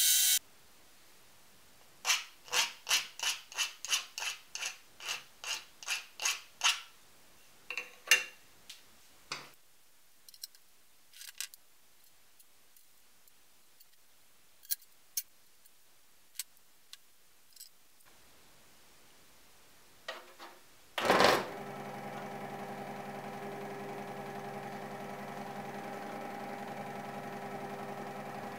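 About a dozen quick, even rubbing or scraping strokes, then scattered light clicks and taps. About two-thirds of the way in, a scroll saw switches on with a thump and runs with a steady mechanical hum.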